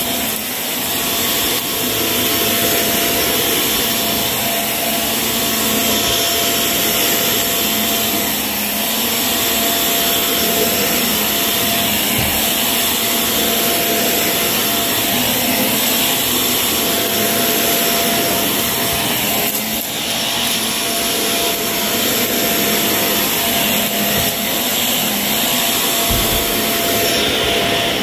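Shark vacuum cleaner running steadily over carpet, a constant rush of suction with a steady whine running through it.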